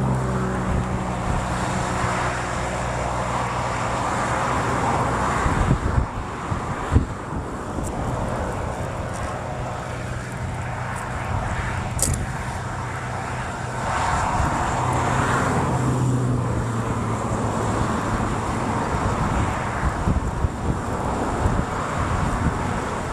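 Motor vehicles passing on a nearby road: steady engine hum and tyre noise that swells twice as vehicles go by, with a few faint knocks.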